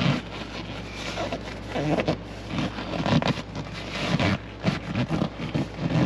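Hands forcing a seat cover's retaining tabs down into the gap between a car seat's backrest and cushion: the cover material and seat upholstery rub, scrape and creak in uneven bursts.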